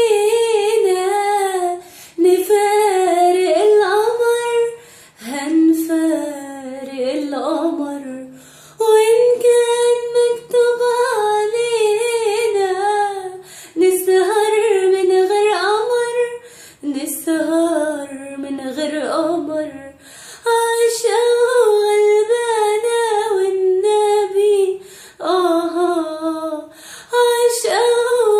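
A woman singing an Arabic song solo in a series of ornamented, wavering phrases of a few seconds each, with short breaks for breath between them.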